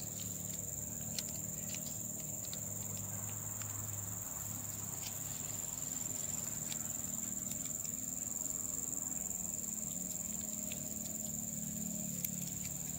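Insects shrilling in one steady high-pitched drone, over a low steady hum, with a few faint clicks.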